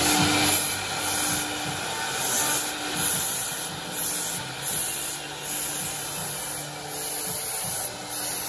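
Four 4.5 kW air-cooled spindles on a multi-head CNC router carving wood, a steady high hiss and rasping cutting noise that swells and eases in irregular surges.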